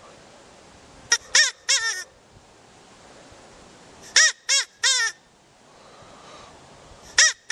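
Rabbit squealing: short, harsh, high cries in quick runs of three or four, about a second in, again after four seconds, and once more near the end.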